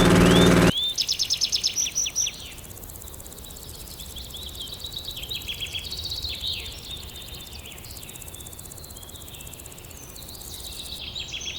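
A loud engine running cuts off abruptly under a second in, leaving several songbirds singing: quick trills and repeated high chirps.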